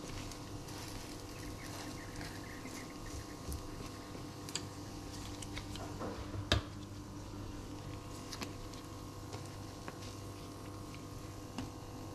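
Light clicks and taps of kitchen tongs and a plate being handled, with one sharper click about six and a half seconds in, over a steady low electrical hum.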